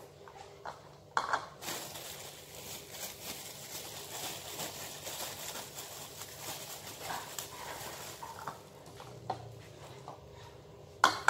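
Kitchen counter handling: a sharp knock, then several seconds of crinkling and rustling, and another sharp knock near the end.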